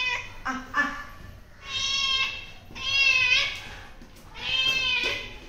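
Orange domestic cat meowing three times, each a drawn-out call that bends in pitch, about a second apart.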